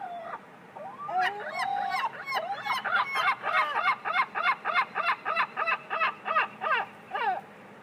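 Seagull giving its long call: a few drawn-out cries, then a fast run of sharp, evenly spaced yelping cries, about three to four a second, that breaks off about seven seconds in.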